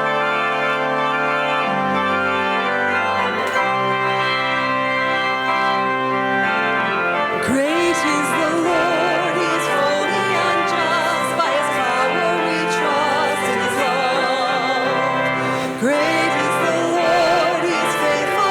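Organ playing held chords. About seven seconds in, a singing voice with a marked vibrato joins over it.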